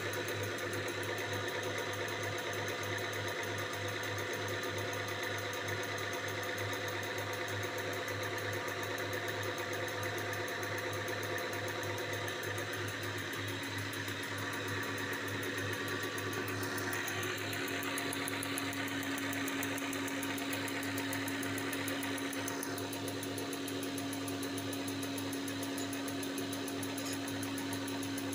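Common-rail diesel injector test bench running: a steady mechanical hum with a fast fine rattle, and a steady tone that grows stronger about two-thirds of the way through. The Siemens Continental injector mounted on it is not yet firing.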